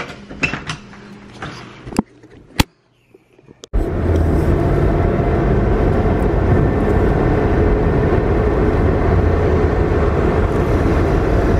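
A few handling noises and two sharp clicks, then from about four seconds in, steady car cabin noise at highway speed: a loud, constant low engine and tyre rumble.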